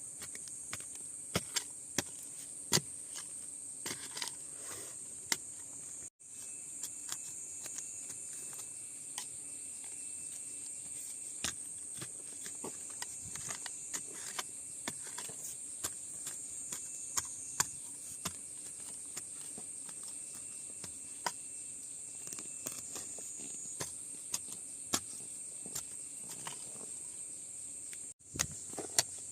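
A steady, high-pitched chorus of insects, such as crickets, with many scattered short clicks and snaps over it.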